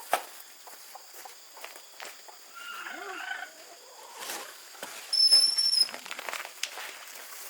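Bird calls against light knocks and taps: a short call about three seconds in, then a high, steady whistled note lasting under a second about five seconds in.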